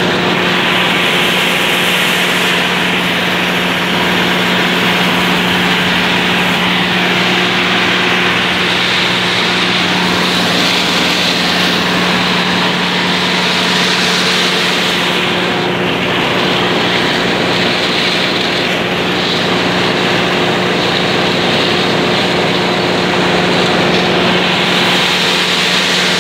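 Claas Dominator 108 combine harvester with a six-row maize header running steadily while harvesting maize: a constant, loud engine and machinery drone with a steady hum.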